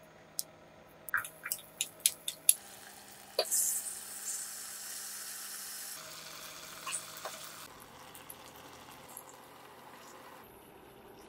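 Goby fish frying in hot oil in a pan. A run of sharp ticks and pops comes first, then about three and a half seconds in a sudden loud sizzle that eases into a steadier, softer sizzle. Water is poured into the pan near the end.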